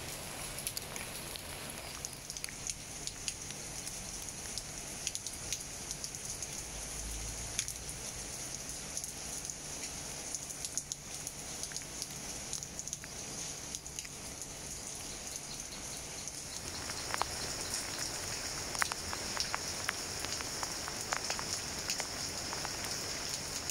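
Steady rain falling on leaves, with scattered sharp drop hits that grow more frequent and louder about two-thirds of the way in, over a steady high-pitched whine.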